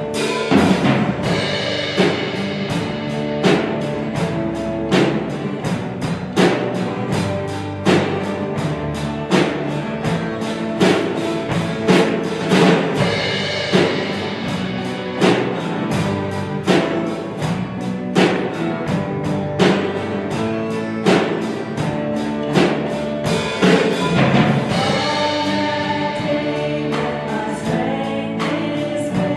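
Live praise band playing a worship song: drum kit keeping a steady beat under electric, acoustic and bass guitars and keyboard.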